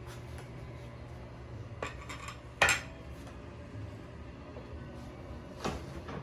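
Cutlery clinking against a plate: a faint tap, a sharper ringing clink about two and a half seconds in, and another clink near the end.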